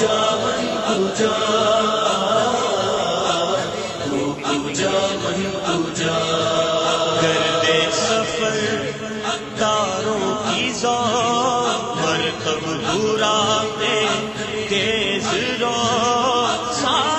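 Naat, an Urdu devotional song: a sung passage of chanting voices carrying a wavering melody with no clear words, in the manner of a chorus interlude between verses.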